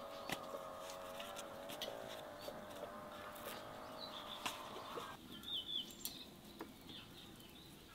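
Soft crackles and taps of thin lavash flatbread being handled and laid into a pot, with birds chirping. A faint steady hum runs underneath and cuts off about five seconds in.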